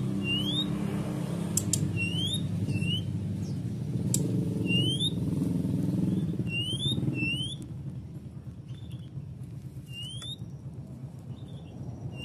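Brown-chested jungle flycatcher giving short, rising whistled call notes, singly or in quick pairs, every second or two. A low, steady hum runs underneath and fades about seven and a half seconds in.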